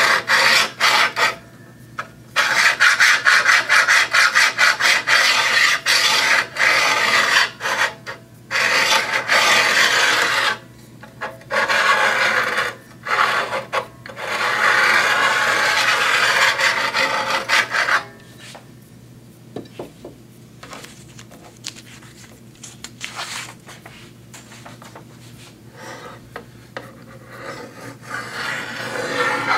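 Diamond paddle hone filed in quick back-and-forth strokes along the steel blade of a guillotine paper cutter, sharpening the edge in place. The strokes come in runs with short pauses and stop about 18 seconds in. Quieter handling sounds follow.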